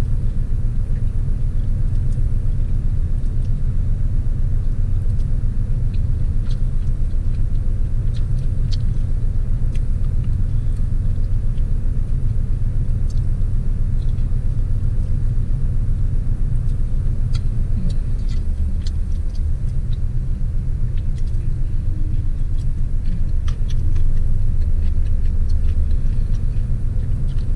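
Steady low rumble of a parked car's engine idling, with a few faint clicks and slurps of noodles being eaten with a fork.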